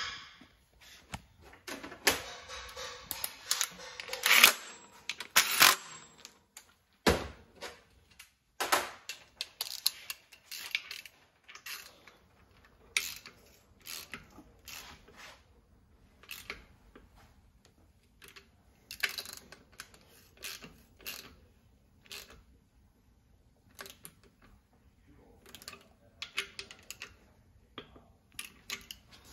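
Hand tools and metal engine parts clicking, clinking and knocking irregularly during engine assembly work, busiest a couple of seconds in, with a heavier thump about seven seconds in.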